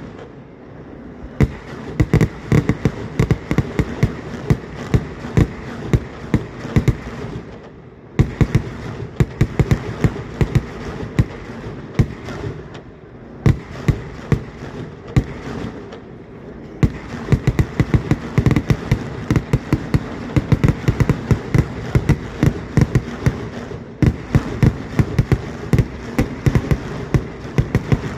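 A dense, continuous barrage of firework explosions: sharp bangs and cracks many times a second. It eases briefly about a third of the way in and again around the middle, then builds back to full intensity.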